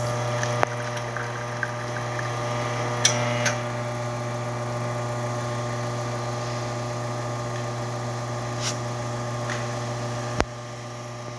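VBM espresso machine's pump running steadily with a buzzing hum while pulling a shot of espresso, with a few light clicks. A sharp click comes about ten seconds in, after which the hum drops in level.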